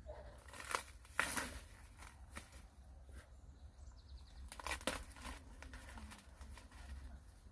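Scattered rustling and crackling, like dry material being handled, with several sharper crackles about a second in and again near the middle, over a steady low hum.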